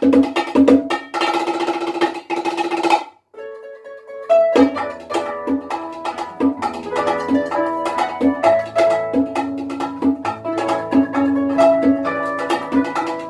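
Concert harp and bongos playing an instrumental arrangement together, with plucked harp notes over bongo strikes. About three seconds in, the music drops off abruptly to a soft held note for about a second. Then the harp resumes plucking with bongo beats.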